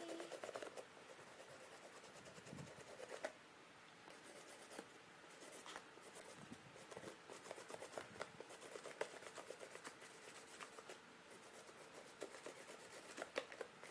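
Faint scratchy rubbing of quick, repeated paint strokes on a cardboard box.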